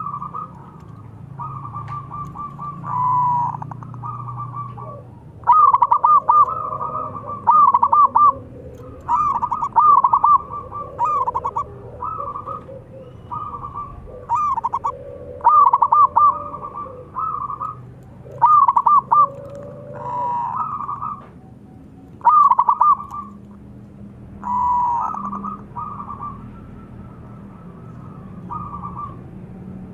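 Zebra dove (perkutut) cooing: a run of loud, short, rapidly trilled coo phrases, one every second or two.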